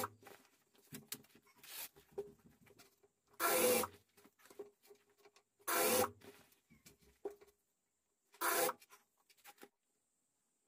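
Industrial sewing machine stitching a zipper into a leather jacket in short bursts of about half a second, four times, with the leather and zipper tape rustling as they are repositioned between runs.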